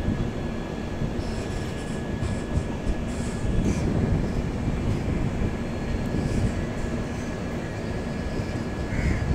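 Passenger express train rolling through a station, a steady rumble of coaches' wheels on the rails with a thin, steady high squeal running above it.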